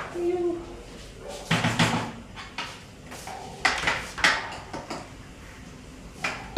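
Kitchen clatter of a cooking utensil against a pan and dishes: a few separate bursts of knocks and clinks.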